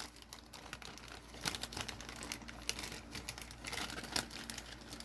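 Thin plastic toy bag crinkling and rustling in intermittent crackles as it is handled.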